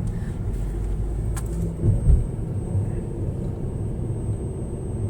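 Car road noise heard from inside the cabin while driving: a steady low rumble, with a couple of low thumps about two seconds in.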